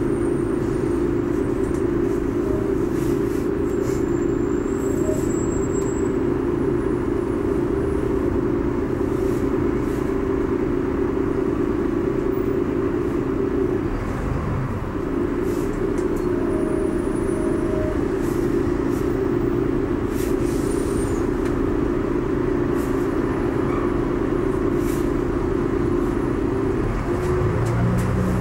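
Volvo Olympian double-decker bus's diesel engine running as the bus edges along in slow traffic, heard inside the upper deck as a steady drone. The drone dips briefly about halfway through and changes to a deeper note near the end.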